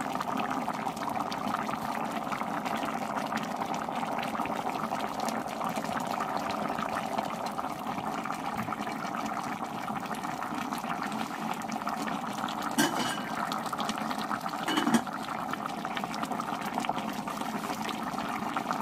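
Thick meat curry boiling hard in an aluminium pot, a steady bubbling, with two brief knocks about two seconds apart later on.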